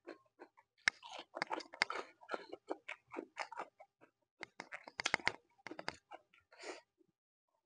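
Close-up chewing with crisp, wet crunches of fresh cucumber slice, in irregular bursts of small clicks and crackles.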